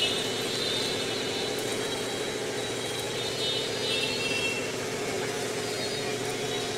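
Steady street traffic noise, with a motor vehicle engine running nearby.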